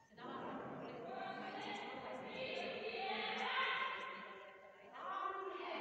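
Background music with sung, choir-like voices, with a short break about five seconds in.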